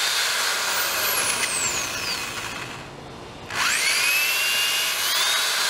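Power drill with a 1/8 inch bit boring a pilot hole into a wooden post. The motor runs at speed, eases off for about a second near the middle, then spins back up with a rising whine.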